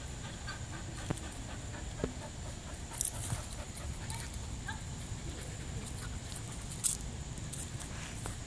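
Catahoula-mix dog whimpering faintly, excited at a squirrel it has chased up a tree. A few sharp clicks sound over a steady low rumble, the loudest about three seconds in.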